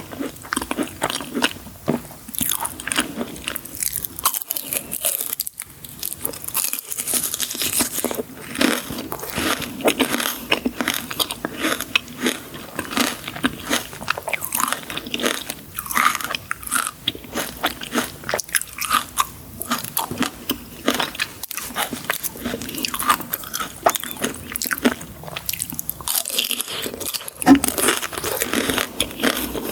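Person biting and chewing crunchy sweets, with dense, irregular crunches and crackles throughout.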